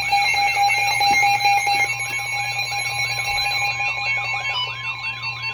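Emergency alert tones: steady alarm tones with a warbling, siren-like tone looping over them about two to three times a second, and another steady tone joining a little past the middle.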